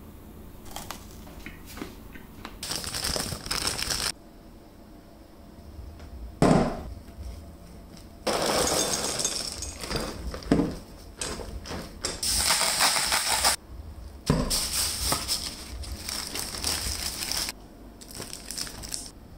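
Food-preparation noises in separate bursts of a few seconds: a spatula stirring crunchy cereal and marshmallow in a glass bowl, crunching and scraping against the glass, and a chocolate bar's foil wrapper crinkling. A single thud falls about a third of the way in.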